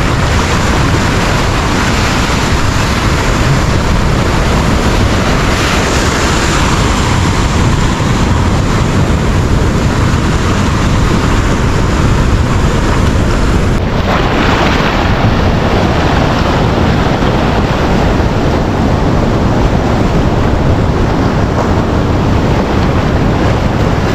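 Ocean surf at a river mouth at high tide, water rushing in and washing against a concrete-block wall, with wind buffeting the microphone. The hiss of the water turns duller about two-thirds of the way through.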